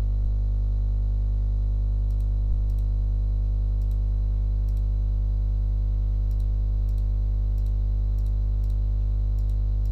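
Steady low electrical hum with a stack of overtones, and about a dozen faint computer mouse clicks scattered through it.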